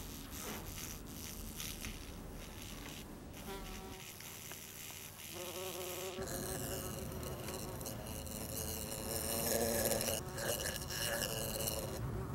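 A bee buzzing at an open glass jar, its pitch wavering. The buzz grows louder and clearer about halfway through and is loudest near the end.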